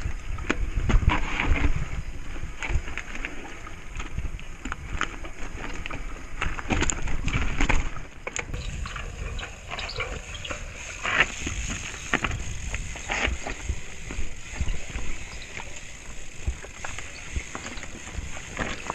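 Mountain bike riding over a rocky trail: tyres rolling and crunching over rock and dirt, with the bike knocking and rattling over the bumps.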